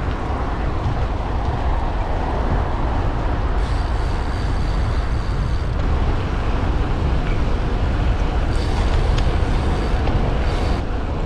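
Wind noise buffeting the microphone while riding a bicycle on the road: a steady low rumble. Twice, for about two seconds each, a fainter high hiss joins in.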